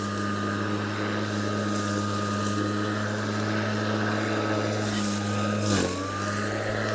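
Atlas 80V brushless cordless lawn mower running, its blade cutting thick zoysia grass: a steady electric hum with a thin high whine. A little before the end the whine dips briefly in pitch and recovers.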